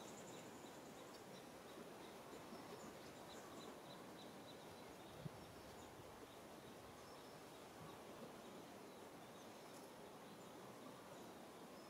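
Near silence: faint outdoor background with scattered faint, high, short chirps and one small click about five seconds in.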